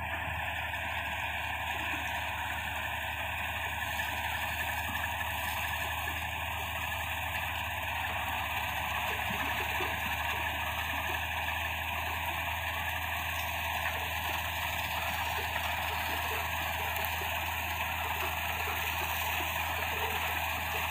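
M132 combine harvester running steadily while harvesting, with the sound of a loose feeder-house chain among its machine noise.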